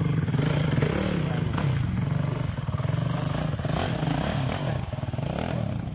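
Dirt bike engine running and revving up and down while the bike is ridden through a shallow, rocky creek, with water splashing around the wheels.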